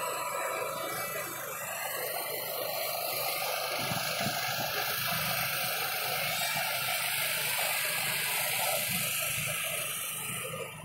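Radio-controlled model F-22 Raptor jet in flight: a steady, high rushing whine that drops away at the very end.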